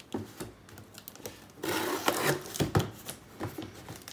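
A knife blade cutting open a cardboard box along its taped seams: a few small clicks, then a longer scraping slice about a second and a half in, followed by a couple of sharp cuts and box-handling knocks.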